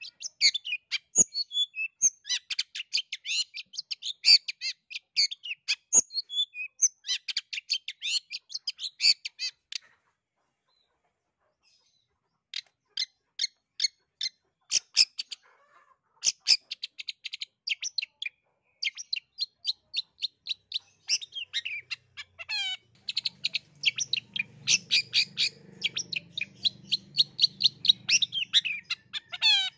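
Long-tailed shrike (cendet) singing a fast, varied chatter of rapid high notes, with a break of a couple of seconds about a third of the way through.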